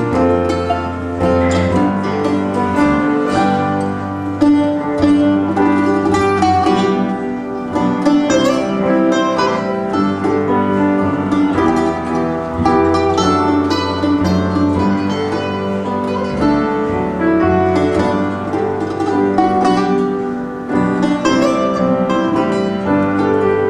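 Acoustic guitar playing a live instrumental waltz.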